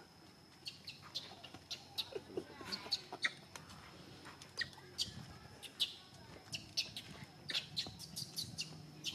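Birds chirping: many short, high chirps at irregular intervals, over a faint steady high-pitched whine.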